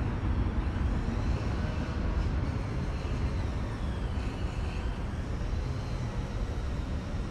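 BNSF manifest freight train passing, a steady low rumble of rolling cars with faint wavering high tones above it.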